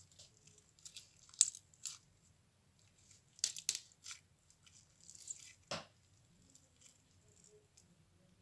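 Slime being played with, giving irregular sharp pops, crackles and tearing sounds in a few clusters, loudest a little over a second in and again about three and a half seconds in.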